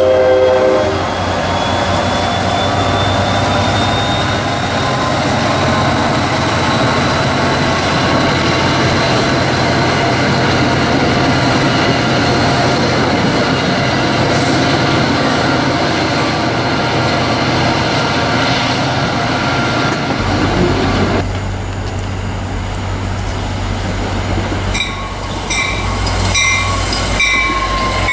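NJ Transit diesel-hauled commuter train of Comet coaches rolling past close by: a steady rumble and clatter of steel wheels on the rails. About twenty seconds in, the sound changes to a second train passing, with a heavier, lower rumble.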